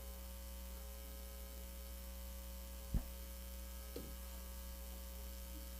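Faint, steady electrical mains hum on the broadcast audio feed during a pause in the talk, with one short click about three seconds in and a smaller tick a second later.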